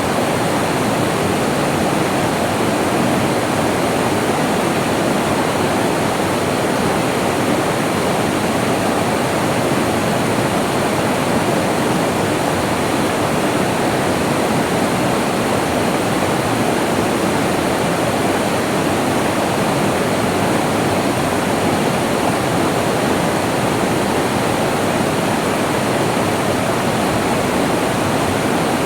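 Flowing water rushing steadily in a rainforest stream, a dense even wash with no breaks or changes.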